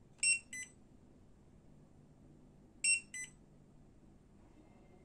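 Portable battery spot welder beeping as its two probe tips are touched together: two short electronic beep pairs, about two and a half seconds apart, each a louder beep followed by a fainter one. There is no spark crackle at contact.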